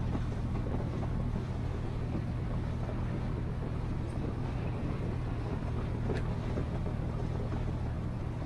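Outrigger boat's engine running steadily at cruising speed, a constant low drone, with wind and rushing water.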